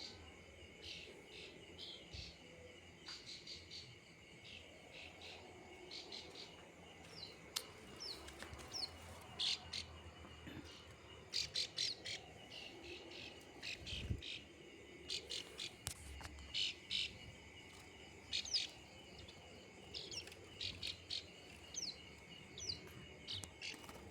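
Prenjak sawah (a prinia) calling: short, high chirps in quick clusters, some with sharp downward sweeps, repeated again and again. A steady high insect drone runs underneath.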